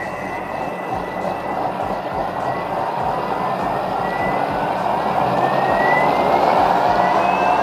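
Vorwerk Thermomix motor and blade pureeing hot pumpkin soup: a loud whirring with a whine that rises in pitch and grows louder as the speed is raised from level 5 toward level 9.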